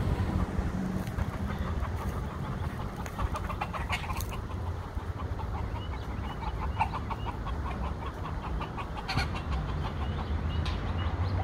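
A flock of feral chickens clucking in runs of short repeated notes, over a steady low hum.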